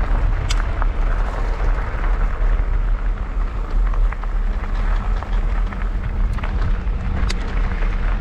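Wind rumbling on an action camera's microphone as a mountain bike rolls over loose gravel, its tyres crunching, with a sharp tick of a stone about half a second in and another near the end.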